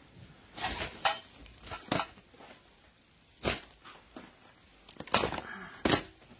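A handful of short, sharp knocks and clatters, irregularly spaced, the loudest about a second in and near the end.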